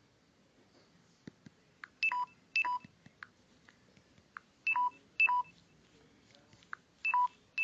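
Short electronic two-tone beeps from an Android screen reader's sound theme, each a brief high note then a lower one. They come in three pairs about two and a half seconds apart, with faint ticks between.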